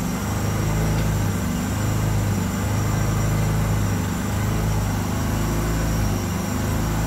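A motor running steadily with a low hum whose pitch shifts slightly every second or so, inside a mobile tire-service van during tire mounting.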